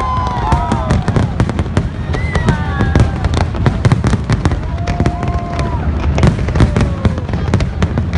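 Fireworks bursting in rapid succession: a continuous run of sharp bangs and crackles over a deep rumbling boom. A few short gliding tones sound over the top.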